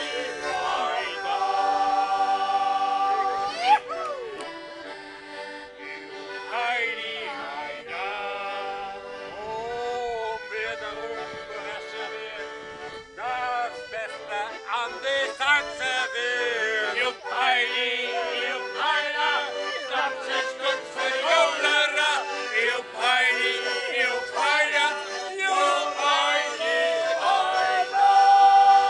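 Accordion playing a sea shanty while a group of men sing along.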